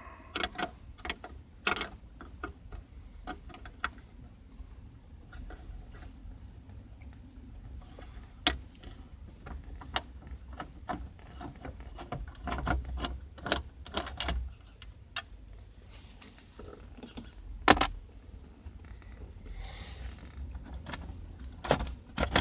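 Hand tools and hands working at screws in a car's steering wheel horn pad: scattered clicks, taps and knocks, some sharper than others, over a low steady rumble.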